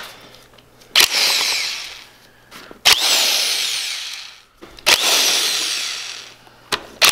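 Milwaukee cordless drill spinning bolts out of a BMW M50 engine in short trigger pulls: three bursts about two seconds apart, with a fourth starting near the end. Each starts with a sharp click and falls in pitch as the motor winds down.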